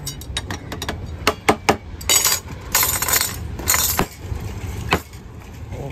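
Glass, spoon and ice clinking and rattling as a kulukki sarbath is made at a juice stall. There is a quick run of sharp clinks, with a few short rushing bursts in the middle.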